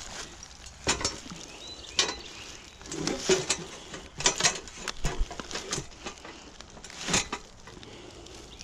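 Irregular knocks and clacks of hard, resin-soaked pine fatwood being handled and shifted, with birds chirping faintly. The chainsaw is not running.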